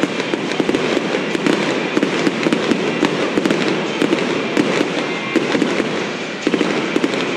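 Fireworks display: a rapid, dense barrage of bangs and crackling from aerial shells bursting, with a brief slackening a little after six seconds before it picks up again.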